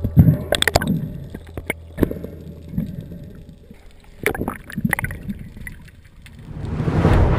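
Underwater sound picked up by a spearfisher's action camera: scattered knocks and clicks over a low watery rumble. A rushing noise swells up near the end.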